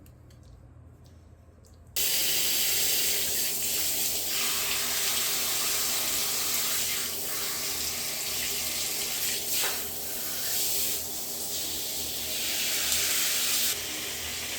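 Water running hard from a tap, switched on about two seconds in as a sudden steady rush that eases slightly near the end.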